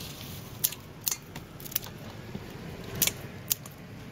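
Kitchen scissors snipping through a raw crab's shell, about six sharp, irregularly spaced snips and cracks.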